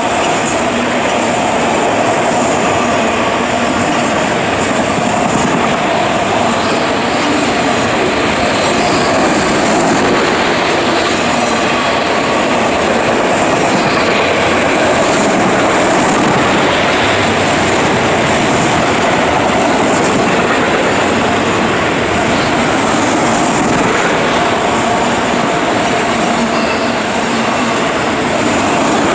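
Freight train of enclosed autorack cars rolling steadily past at close range: a continuous loud rumble of steel wheels on rail, with a thin, steady, high wheel squeal over it.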